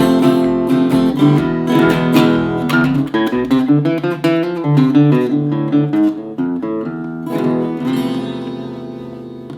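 Acoustic guitar strumming chords in a steady strumming pattern. The strokes thin out about six seconds in, and the last chord is left to ring and fade.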